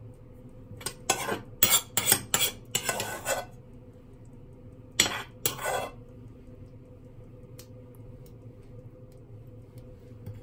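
Metal spoon scraping and clinking against a frying pan while scooping up stuffing: a quick run of scrapes in the first few seconds, then two more a little later, over a steady low hum.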